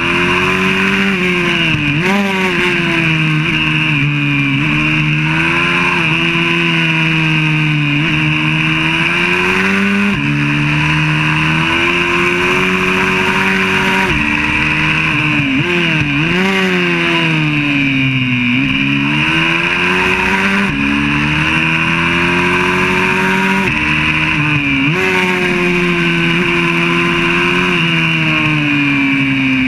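YCF 125cc four-stroke pit bike engine heard onboard at speed on track, its pitch repeatedly climbing under throttle and dropping away, with sudden steps at the gear changes.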